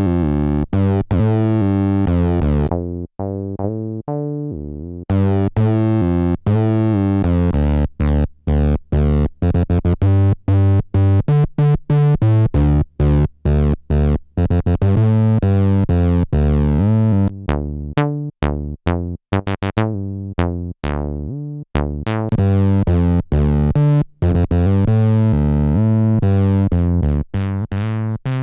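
Behringer TD-3 bass synthesizer playing a squelchy acid bassline of short sequenced notes through its built-in distortion, the resonant filter opening and closing as it goes.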